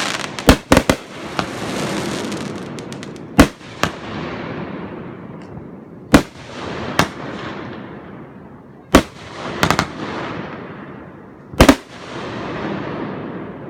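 Aerial fireworks shells bursting: sharp bangs, some in quick clusters, every second or few. Each bang is followed by a long fading rumble.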